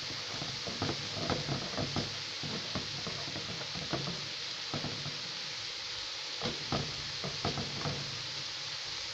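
Handfuls of chopped managu (African nightshade) greens scooped by hand from a plastic basin and dropped into a steel pot, giving irregular rustles and light knocks over a steady sizzle of onion and tomato frying beneath them.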